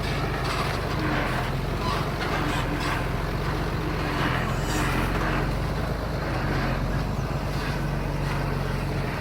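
Heavy diesel earthmoving machine running steadily under load, with irregular clatter over the engine note.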